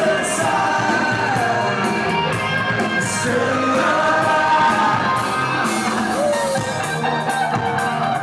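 Live rock band playing: electric guitars and a drum kit under a sung lead vocal line, heard from within the audience.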